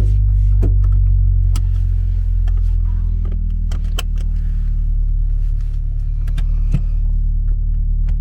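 Subaru BRZ's flat-four engine idling through an Invidia N1 cat-back exhaust, heard inside the cabin as a steady low, bassy drone. A few sharp clicks and knocks sound over it.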